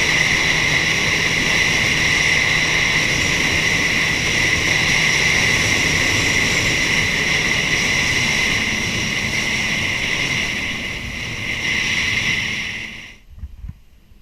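Personal watercraft (jet ski) running at speed: a loud, steady engine and jet-pump whine over rushing wind and water. It stops abruptly near the end, leaving a much quieter background.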